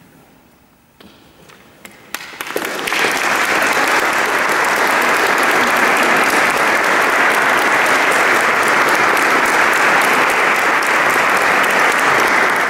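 Audience applauding: a few scattered claps about a second in, swelling within two seconds into full, steady applause.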